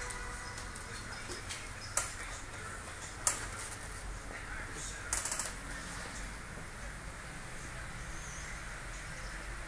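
An Irish Setter puppy and an older dog play-wrestling on a wooden floor: claws scrabbling and clicking on the boards, with two sharp clicks and a quick rattle of clicks about five seconds in.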